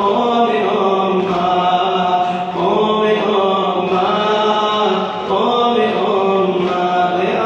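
A cappella chanting of a Shia Muharram lament: long held, slowly bending vocal notes over a steady low drone.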